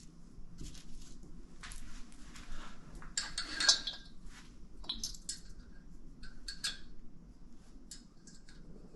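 Small metal parts and tools being handled: scattered light clinks with a short scrape a few seconds in and a quick run of clinks a little later.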